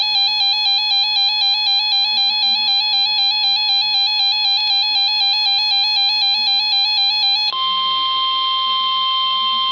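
Electronic emergency-alert beeping, a shrill tone pulsing about three times a second. About seven and a half seconds in it switches to one steady, unbroken tone: the 1050 Hz weather-radio warning alarm that comes before a severe thunderstorm warning is read.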